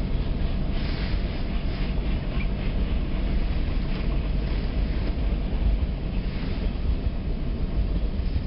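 Freight train cars rolling past on the rails, a steady low rumble of wheels on track. Brighter rattling stretches come through about a second in and again around six seconds in.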